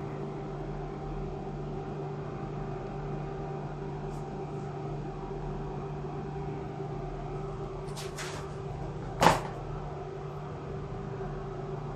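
A steady electrical hum from a running appliance, with a couple of faint ticks and one sharp knock about nine seconds in.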